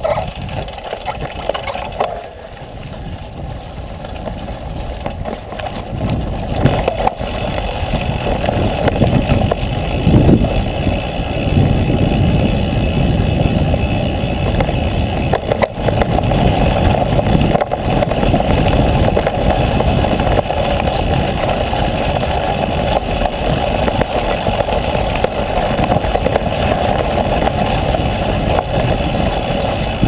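Wind rumbling on a bicycle-mounted camera's microphone while the bike rattles over a rough dirt road, with tyre noise and scattered knocks. It grows louder after the first several seconds.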